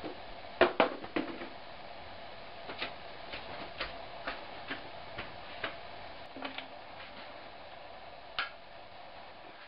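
A few sharp clicks in the first second and a half, then light, fairly regular ticks about twice a second over a steady hum of room tone.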